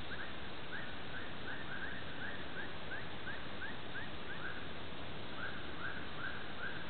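An animal, plausibly a bird, calls in a fast run of short rising chirps, two or three a second, over a steady hiss. The chirps pause briefly a little past the middle, then start again.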